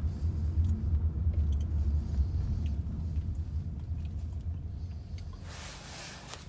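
Low, steady rumble of a car heard from inside its cabin in slow city traffic, easing slightly over time, with a hiss rising near the end.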